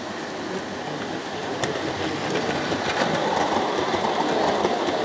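O gauge tinplate model train running on tinplate track, its wheels rumbling on the metal rails. The sound grows louder about three seconds in as the coaches pass close by.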